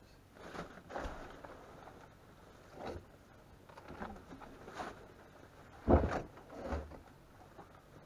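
Irregular scrapes, knocks and splashes as the old electric water heater is rocked and tilted on the wet floor of a flooded crawl space. About seven separate noises, the loudest a heavy knock about six seconds in.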